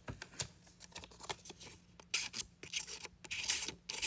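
The dull 440C blade of a Benchmade Adamas push dagger being forced through paper in a cut test, making a run of short scratchy tearing strokes. The edge is dull and has to be pushed rather than slicing cleanly.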